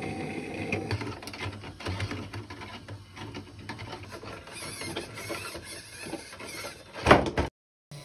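Small electric motor driving 3D-printed plastic gears, running with many small clicks and knocks. A loud knock comes about seven seconds in, followed by a short cut to silence.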